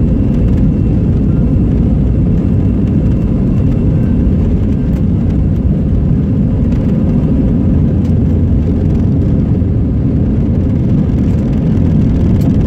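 Airbus A320 jet engines at takeoff power during the takeoff roll, heard from inside the cabin over the wing: a loud, steady low rumble with a faint high whine.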